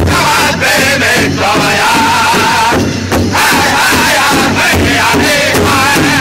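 Powwow drum group singing together in chant over steady, even beats struck in unison on a large hide-covered powwow drum, with a brief lull about three seconds in.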